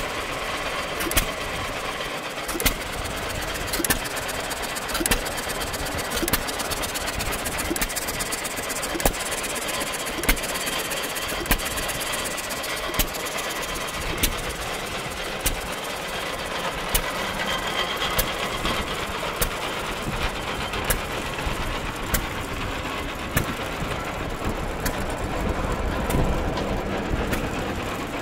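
John Deere 3 HP hit-and-miss engine running under load, firing with a sharp bang about every 1.3 seconds. It drives a paddle elevator by flat belt, and the elevator's chain and paddles make a steady clatter underneath.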